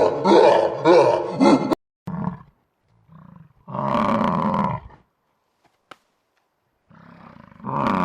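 Animal sound effects: a rapid run of pitched calls that cuts off abruptly a little under two seconds in, then a short call, a longer roar-like call about four seconds in, and another roar-like call rising near the end.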